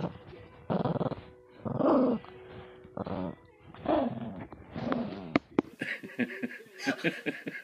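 Chihuahua growling in about five short bursts, roughly one a second, a warning growl at being handled. Near the end the growling stops and fast faint clicks follow.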